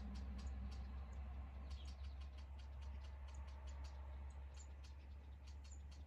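Faint outdoor insects, likely crickets in the grass, chirping in quick short ticks over a steady low hum.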